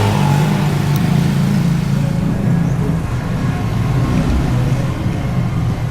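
A motor vehicle engine running steadily, its low hum shifting slightly in pitch partway through.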